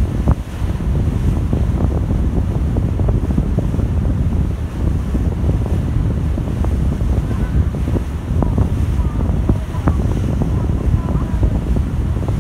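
Wind buffeting the microphone aboard a cruise boat under way, a heavy low rumble with irregular gusty thumps, over a wash of water along the hull.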